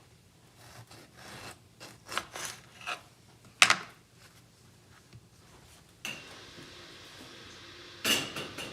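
Rubbing and scraping handling noises with several sharp knocks, then a steady hiss that starts abruptly about six seconds in.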